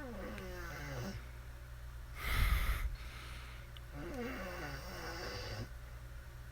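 A sleeper's snoring noises: a wavering groan that falls in pitch, a loud snort about two seconds in, then another wavering groan.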